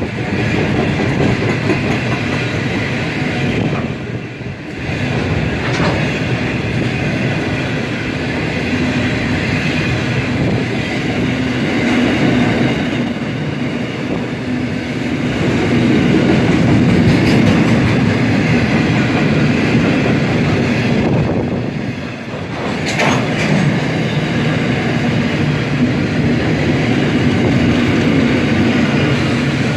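A train running on the rails: a loud, steady rumble of wheels and running gear, with brief dips about four seconds in and again about 22 seconds in.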